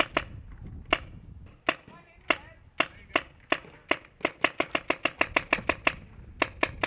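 Shocker RSX paintball marker firing close to the microphone: spaced single shots at first, then quick strings of about six shots a second, with a short pause near the end.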